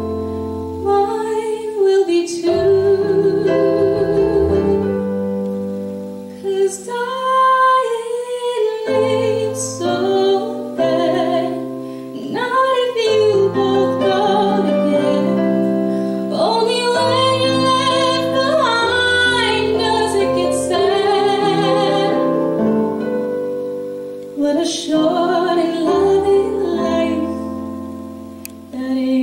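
Solo female voice singing a musical-theatre ballad with held notes and vibrato, accompanied live by keyboard, electric bass, drum kit and electric guitar.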